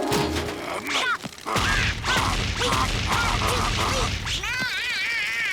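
Cartoon soundtrack effects: a low, steady rumble with a regular pulsing beat sets in after about a second and a half, under short knocks. Near the end comes a brief warbling cartoon voice.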